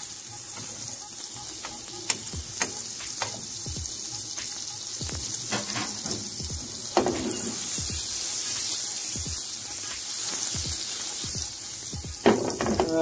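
A pat of butter sizzling and foaming as it melts in a hot pan, with a steady hiss. Metal tongs push it around, clicking against the pan now and then.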